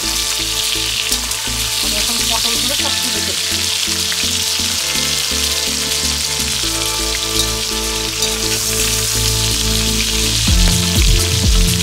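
Pointed gourd pieces sizzling steadily as they shallow-fry in hot fish-frying oil in a wok.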